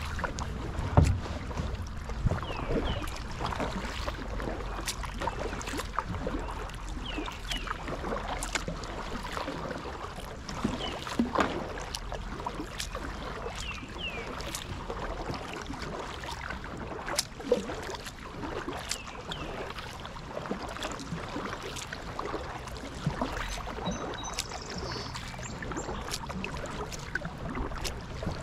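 Kayak paddling: paddle blades dipping and splashing in the river, with drips and small knocks, and a louder thump about a second in.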